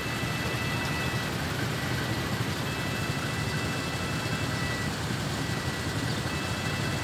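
Idling motorbike engines and road traffic as a steady rumble at a lowered railway level-crossing barrier, with a warning alarm sounding long, high, steady electronic tones that break off and resume several times.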